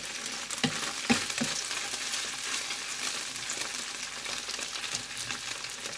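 Cornstarch-coated tofu cubes sizzling steadily in hot oil in a non-stick frying pan, with a few scrapes and clicks of a metal spoon turning them in the first second or so.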